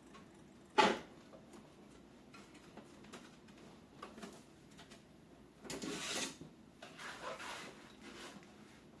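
Small handling noises from PC-build parts: one sharp click about a second in, then two short stretches of rustling around six and seven seconds, with a few faint ticks.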